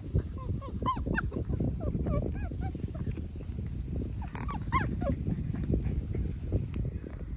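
Six-week-old Labrador retriever puppies whimpering and yipping: a run of short, high whines in the first three seconds and another cluster about four to five seconds in, over a steady low rumble.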